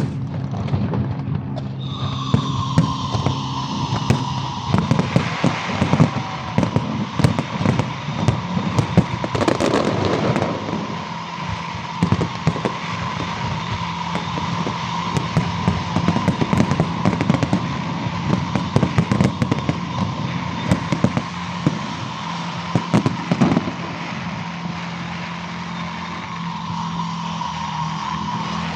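Fireworks going off: a rapid run of bangs and crackling bursts, with a steady high tone held beneath them from about two seconds in.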